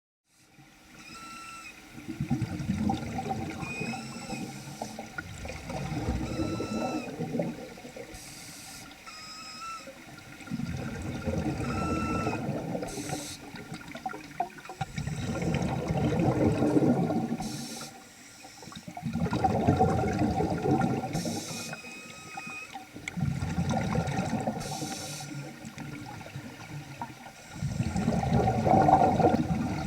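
Nemrod Snark III vintage double-hose scuba regulator heard underwater, with a rush of breath and bubbles swelling and fading about every four seconds. Short high squeaks come back several times between the breaths. These are strange noises the regulator had not made before, though it still breathes normally.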